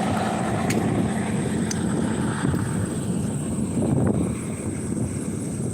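Steady low rumble of a car's engine and tyre noise while driving.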